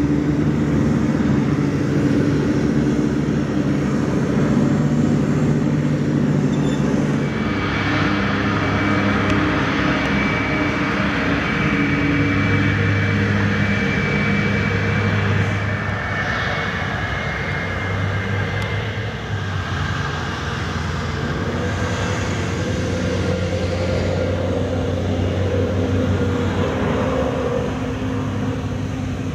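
Jet engines of a taxiing Qatar Airways Airbus A340-500, four Rolls-Royce Trent 500 turbofans, running as a steady low rumble. A high whine comes in about seven seconds in and fades out after several seconds.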